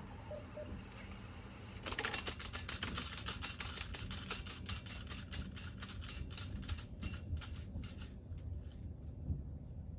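Otari MX-5050 BII-2 reel-to-reel tape deck with its reels winding at high speed. A rapid run of clicks sets in about two seconds in, then grows sparser and stops near the end.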